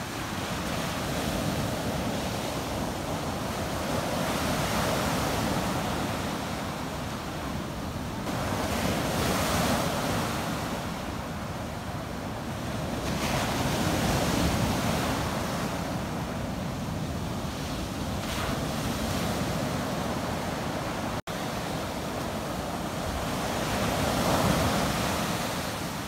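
Ocean surf breaking and washing up a sandy beach, a steady rushing wash that swells and eases every few seconds as each wave comes in. Late on, the sound drops out for an instant.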